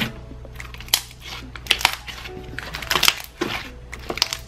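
Stretchy glittery glue slime being pressed and poked by hands: irregular wet clicks, squelches and sharp pops, the loudest a little under a second in, near two seconds and near three seconds. Soft background music plays underneath.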